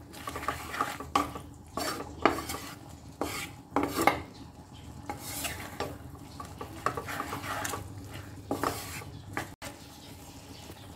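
A wooden spatula stirring and scraping instant noodles and vegetables around a non-stick frying pan, in irregular strokes about once a second.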